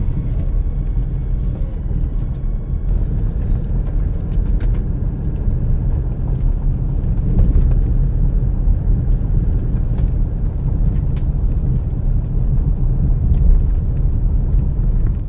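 Car interior noise while driving: a steady low rumble of engine and tyres on the road, with a few faint clicks.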